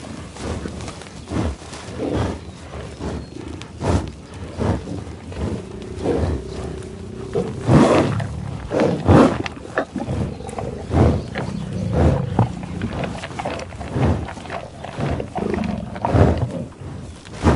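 A buffalo sniffing and grazing in tall grass: irregular loud snuffling breaths through the nose and rustling, tearing grass, with a few short low grunts.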